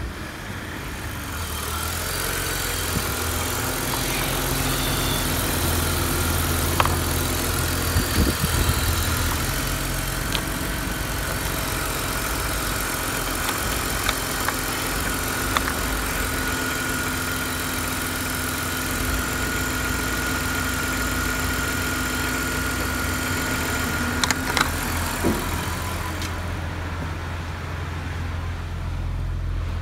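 BMW E46's M52TU 2.5-litre straight-six petrol engine idling steadily, with a few faint clicks scattered through.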